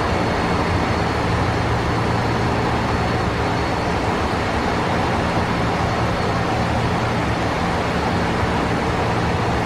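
Steady cockpit noise of a Boeing 767-200 climbing just after takeoff: a loud, even rush of airflow over a low engine hum, with a faint high whine.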